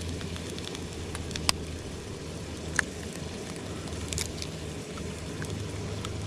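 Gas canister backpacking stove running steadily under a frying pan of eggs and potatoes, with a few sharp clicks as an eggshell is broken open over the pan.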